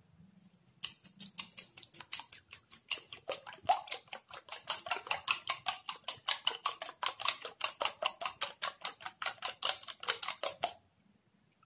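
Eggs being beaten with a fork in a small ceramic bowl: rapid, even clicking of the fork against the bowl, about five strokes a second. It starts about a second in and stops shortly before the end.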